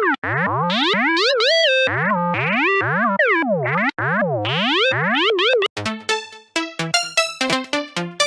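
Xfer Serum software synthesizer playing bass presets. For about the first five and a half seconds a held tone slides up and down in pitch in sweeping glides. Then a different preset plays short, clipped notes.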